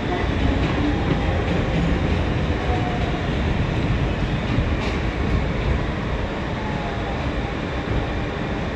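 R160B Siemens subway train running from a station into a tunnel, heard from inside the car: a steady rumble of wheels on rail with motor and car noise, easing slightly in loudness over the last few seconds.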